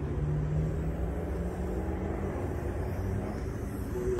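An engine running: a steady low rumble with a tone that rises slightly in pitch.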